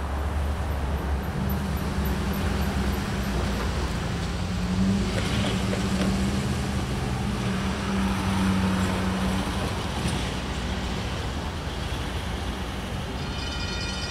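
Road traffic passing close by, with a car going past about eight seconds in, over the low rumble of approaching diesel locomotives. Near the end a horn begins to sound, held steady.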